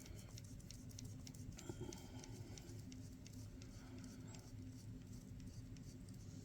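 Faint small clicks and scratching of handwork on a radio-control truck axle: a screwdriver backing out the last screw of the differential cover.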